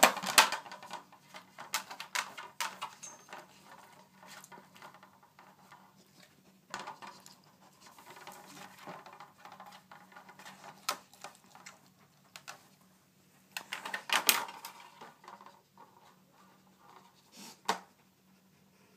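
An Airedale terrier working a round treat-puzzle board with its nose and paws: irregular clicks and knocks as the board's parts are pushed about, coming in clusters every few seconds, with sniffing between.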